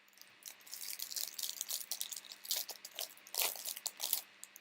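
Crackly handling noise of trading cards and their pack wrapper: a run of short crinkles and crunches, densest in the middle and easing off near the end.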